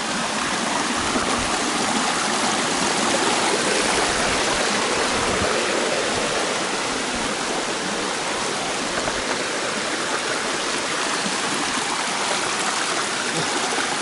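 Shallow mountain creek rushing and splashing over rocks and small cascades, a steady, even rush of water.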